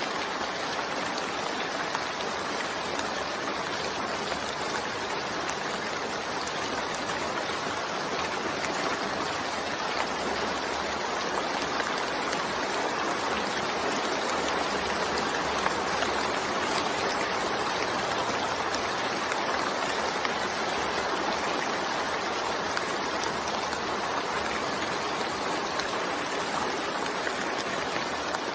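Steady rain: an even, unbroken hiss of falling water with faint patter of drops.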